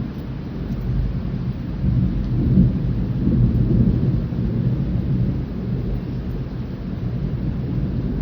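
Thunder rumbling, swelling about two seconds in and then easing off, over steady rain.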